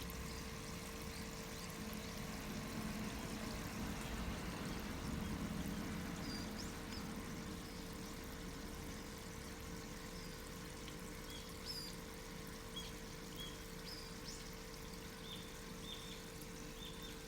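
Water pouring and trickling over a steady hum, with small birds giving short high chirps, more often in the second half.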